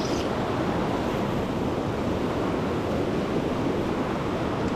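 Fast-flowing river rapids: a steady, unbroken rush of water.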